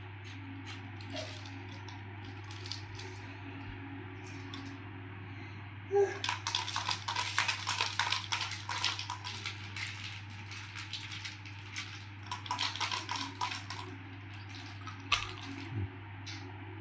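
Light clattering and clicking of small hard objects knocking together. It comes in quick runs, thickest from about six to thirteen seconds in, over a steady low hum.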